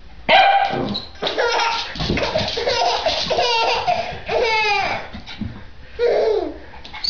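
Baby laughing in a string of repeated, high-pitched bursts over about five seconds, with one more short falling sound near the end.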